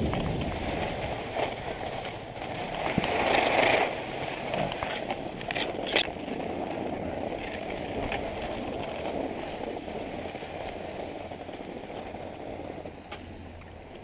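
Skis hissing and scraping over packed snow during a downhill run, mixed with wind rushing over the microphone. There is a louder swell a few seconds in and a single sharp click about six seconds in, and the sound fades down near the end as the skier slows.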